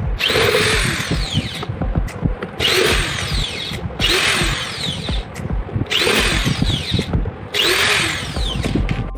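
Cordless drill-driver turning the mounting screws of a loudspeaker driver in a wooden speaker board, in five short runs of about a second each. The motor whine dips and recovers in pitch with each screw's load.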